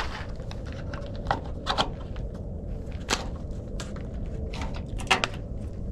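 A handful of sharp clicks and light knocks, spread a second or so apart, from the wiring harness and its clips being pushed into place on a truck frame, over a steady low rumble.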